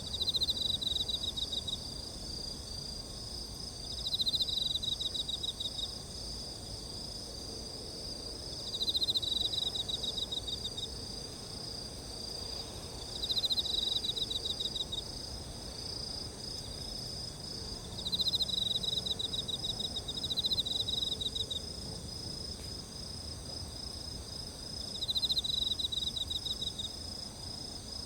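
Insects chirping: a steady high-pitched chorus, with one louder insect trilling in pulsed bursts of about a second and a half, repeated roughly every four to five seconds.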